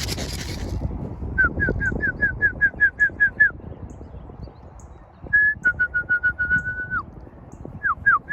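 Three runs of quick whistled notes, about five a second, each note slurring down, with the middle run held on one pitch and ending in a drop. Steady wind rumble underneath, with a brief rush of noise at the start.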